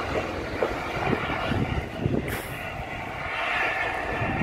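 Steam-hauled train of passenger coaches behind LNER A4 locomotive 60007 Sir Nigel Gresley rolling past, with a steady rumble and irregular knocks as the wheels run over rail joints and points.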